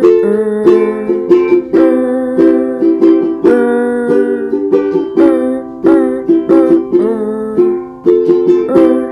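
A ukulele strummed in a steady, even rhythm, playing a simple repeating chord pattern as a song accompaniment.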